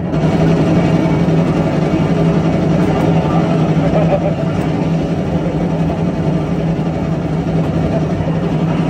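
A car's engine and road noise running steadily, with a loud constant low hum.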